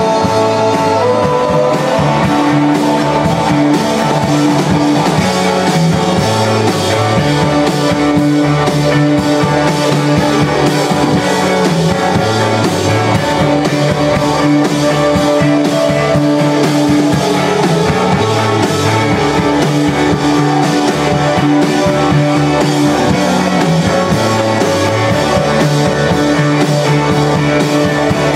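Rock band playing live: electric guitars and a drum kit in a steady, loud, full-band passage, with a keyboard.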